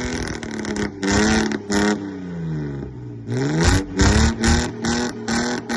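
Car engine revving, its pitch rising and falling, with exhaust pops and crackles. In the last couple of seconds the engine holds a steady note while the exhaust gives a regular run of sharp bangs, about three a second.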